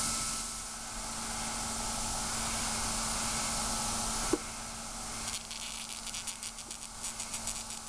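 Steady hiss, one sharp click about four seconds in, then rapid irregular crackling as a spoon works a lump of solid argon in a frosted plastic cup.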